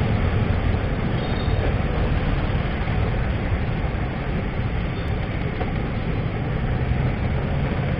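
Steady rumble of a motorcycle riding in slow city traffic: engine and road noise with no distinct events.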